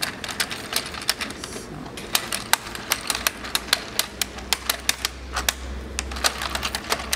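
Circular Knitic circular knitting machine turned by hand: its needles click and clack several times a second, unevenly, as they are driven up and down to catch the yarn for the first cast-on rounds.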